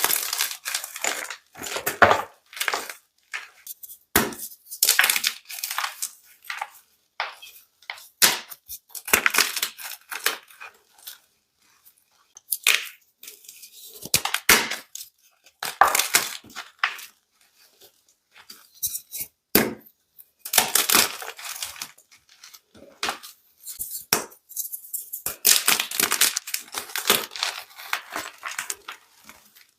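Blocks of gym chalk being crushed and crunched, in irregular bursts of crisp crumbling crunches with short pauses between them.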